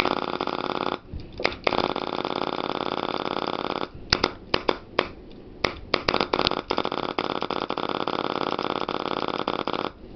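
Tippmann-bodied paintball marker with a Karnivor frame and electronic trigger board, with the trigger held: air sputtering through the gun in a rapid, fart-like buzz, in three bursts of about one, two and four seconds, with sharp clicks in the gap between the second and third. The marker is not cycling, which the owner puts down to a probably pinched LPR hose.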